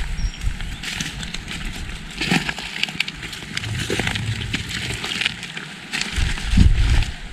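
A walker's footsteps crunching on a woodland path, with an irregular crackle from each step and a few heavier low thuds.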